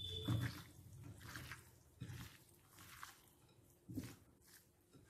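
Faint, wet squishing of raw beef pieces, sliced onion and tomato coated in spice powders being mixed by hand in a bowl, a few soft squelches at irregular intervals.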